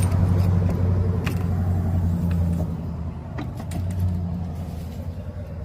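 A motor vehicle engine running with a steady low hum that fades gradually toward the end, with a few faint ticks.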